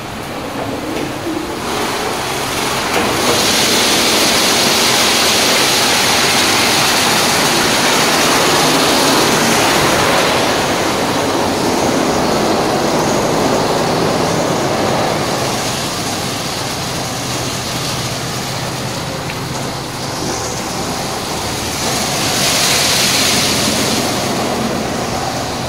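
Automatic soft-touch car wash running: spinning foam brushes scrubbing a car under water spray, a loud steady rushing over the low hum of the wash machinery. The spray grows louder and hissier about three seconds in and again near the end.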